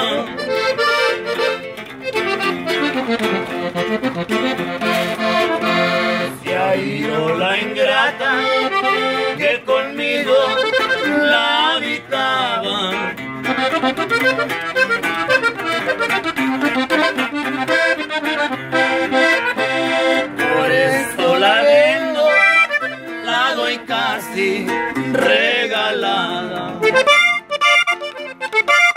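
Live instrumental norteño music on a button accordion and a bajo sexto: the accordion plays the melody over the bajo sexto's strummed chords and bass runs.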